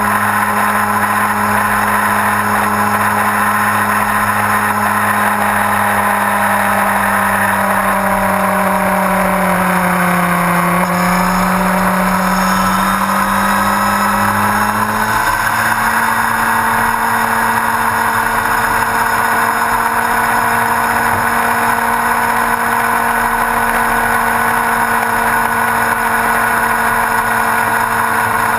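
Yamaha R1's inline-four engine running at a steady cruise under wind and road noise. Its pitch dips and recovers a third of the way in, then steps up and holds steady about halfway through.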